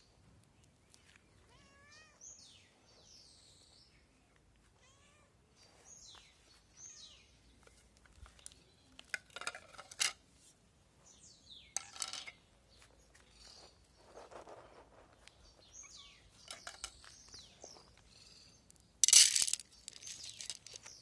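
Stray cats meowing again and again, short high calls that rise and fall, as they beg for food. Sharp rustling strokes come later, and a loud noisy burst of rustling near the end as dry cat food is served.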